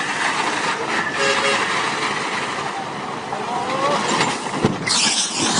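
Heavy vehicle noise, steady and dense, with a loud hissing rush near the end.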